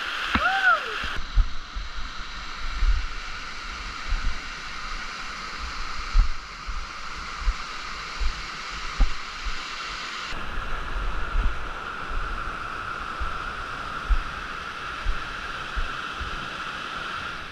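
Steady rushing of an alpine mountain stream and waterfall, heard through a helmet-mounted action camera, with irregular low thumps of wind and movement on the microphone.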